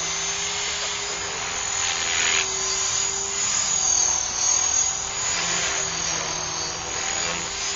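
T-Rex 500 electric model helicopter in flight overhead: a steady high whine, with the rotor's whoosh swelling and fading several times as it moves about.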